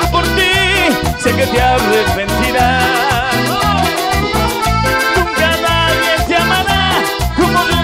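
Live tropical cumbia band playing an instrumental passage: a wavering, accordion-like lead melody over a pulsing bass and a steady dance beat, with no singing.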